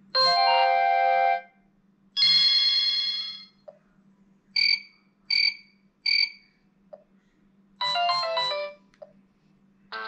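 T-Mobile Sidekick II (Hiptop 2) playing its built-in alert sound effects through its small speaker: two held electronic chimes, then three short beeps about a second apart, then a quick run of notes near the end.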